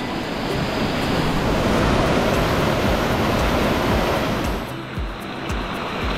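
Small waterfall and a rocky stream: a steady rush of falling and splashing water, with a brief dip about five seconds in.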